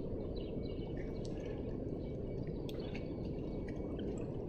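Steady low outdoor background noise with faint, scattered bird chirps; no engine cranking is heard.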